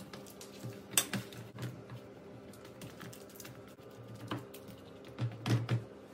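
Hands patting and pressing soft corn-flour dough flat in a paper-lined metal baking tray: irregular soft taps and clicks, with a sharper one about a second in and a few more near the end, over a faint steady hum.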